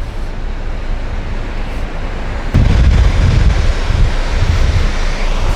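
Wind buffeting the microphone on a ferry's open deck over a steady rush of wind and sea, with a heavier gust coming in suddenly about two and a half seconds in.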